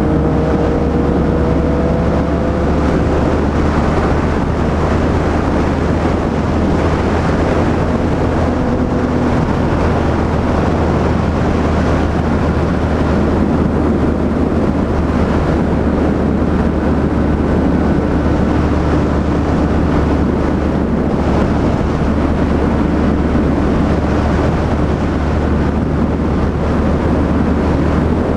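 Yamaha MT-03 motorcycle engine running at a fairly steady pace while riding, with wind noise over the microphone.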